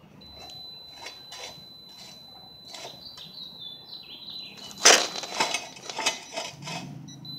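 Metallic clinks and knocks of tools and parts being handled in a shop, with one sharp, loud knock about five seconds in.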